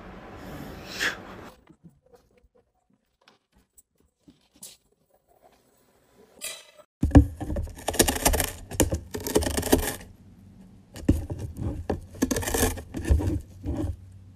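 Cat gnawing the edge of a cardboard box, close up: scratchy tearing in two runs of a few seconds each, starting about halfway in.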